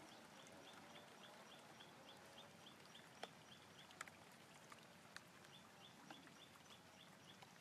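Faint, rhythmic chirping of a small animal: short high chirps about three or four times a second, stopping for about two seconds midway, with a few sharp faint clicks.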